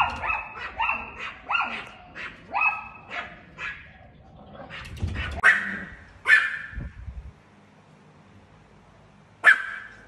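Long-haired Chihuahua barking at a cat: a quick run of short, high barks, about two a second, then two louder barks around the middle and a single bark near the end.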